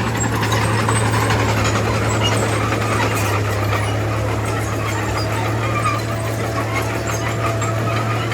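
Diesel engine of heavy earthmoving machinery running steadily under load, with a constant low drone and rattly clatter; a faint thin whine joins in during the second half.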